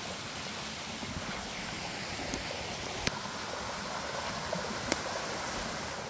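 Steady outdoor rushing noise with two sharp clicks, about three and five seconds in.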